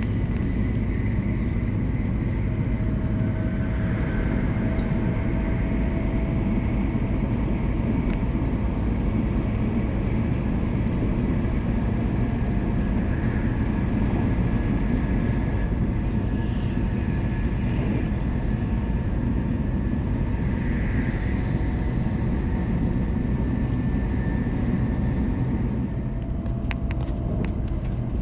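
Shinkansen running noise heard from inside the passenger car: a steady low rumble of wheels on track, with faint held whines from the drive motors. There are a few light clicks near the end.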